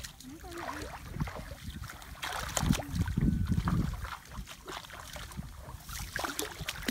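Muddy water sloshing and splashing as a person wades waist-deep and feels around underwater for fish by hand, with wind rumbling on the microphone, strongest in the middle.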